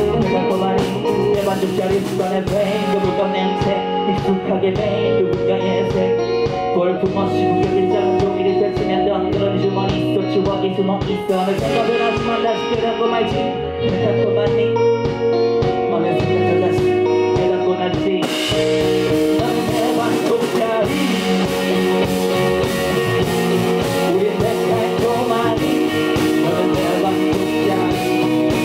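Live rock band playing: electric guitar, bass guitar and drums, with the sound growing brighter and fuller about two-thirds of the way in.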